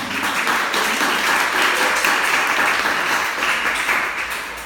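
An audience in a room applauding, a dense patter of many hands clapping that starts at once and fades out near the end.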